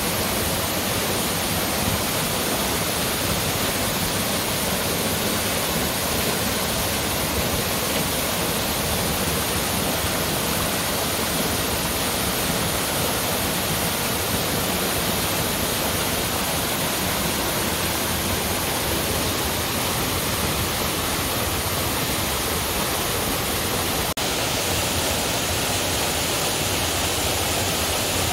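Tall waterfall pouring free over a rock bluff into a plunge pool: a steady rush of falling water. Near the end the sound shifts to a smaller cascade tumbling over boulders.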